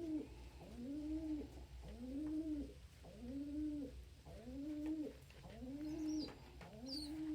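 Domestic pigeon cooing in a steady series, about one arched, rising-and-falling coo a second.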